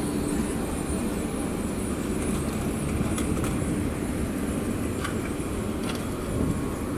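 Bordeaux TBM tram, an Alstom Citadis, rolling past with a steady low rumble and hum of steel wheels on rail. A few light clicks come about halfway through and again near the end.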